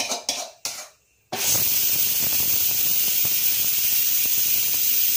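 Metal spatula scraping cooked potato filling out of a kadai, about three strokes a second. After a short gap, a loud steady hiss of heavy rain sets in abruptly.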